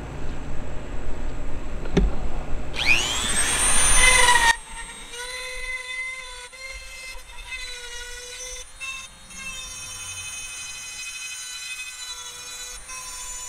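Dremel rotary tool switched on with a click about two seconds in, its whine rising sharply in pitch as it spins up, then running at a steady high whine that wavers now and then as the bit grinds out chips in a porcelain enamel surface. A low rumble comes before it starts.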